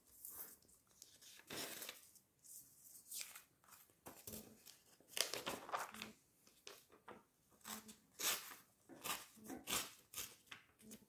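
Sheet of A4 paper being folded, creased and cut to a square, giving faint, irregular rustling and crinkling that grows busier about halfway through.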